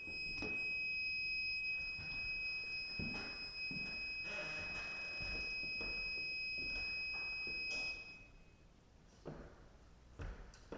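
A steady high-pitched electronic tone sounds and cuts off suddenly about eight seconds in, as the power to the switch circuit is shut off. A few soft knocks are heard while it sounds.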